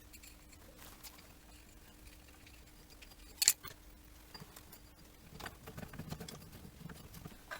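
Small metal tools and fasteners being handled: a sharp clink about three and a half seconds in, then a few softer clicks and rustles, over a faint steady hum.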